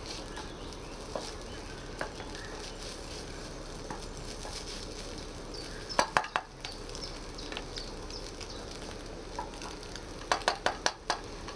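Egg and hash brown sizzling in a frying pan on a camping gas stove while being stirred and mashed with a utensil. The utensil clinks against the pan in a quick run of sharp knocks about halfway through and again near the end.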